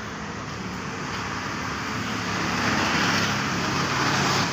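Road traffic noise, with a passing vehicle that grows louder through the second half.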